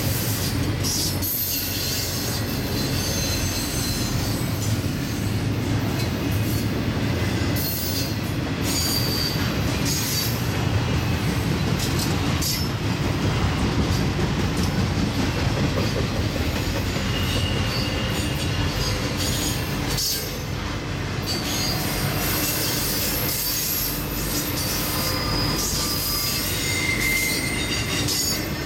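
Norfolk Southern intermodal freight train rolling past with a steady low rumble of cars on the rails. Short, high wheel squeals come and go.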